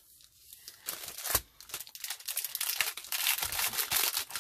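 Clear plastic packaging crinkling as hands handle it, starting about two seconds in, with one sharp click a little before.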